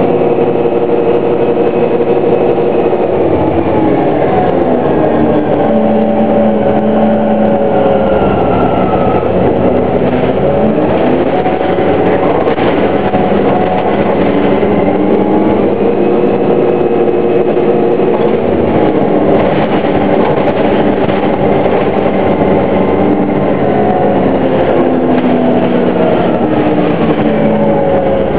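A 2009 Orion VII Next Generation hybrid-electric bus, with a Cummins ISB diesel and BAE HybriDrive, running. Its electric drive whines, the whine rising and falling in pitch several times as the bus speeds up and slows down, over a steady mechanical noise with scattered rattles.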